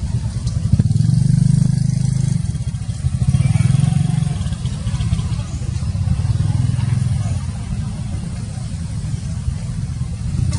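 An engine running low and steady, swelling louder a couple of times.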